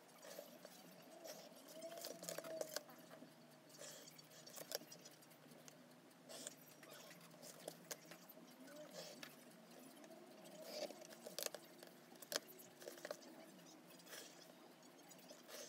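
Faint pencil scratching on paper as lines are drawn along a plastic set square, with scattered small clicks and taps as the set square and pencil are moved on the desk.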